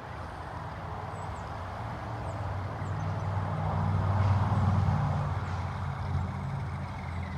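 A motor vehicle's engine running low as it passes on the street, growing louder to a peak a little past the middle and then fading.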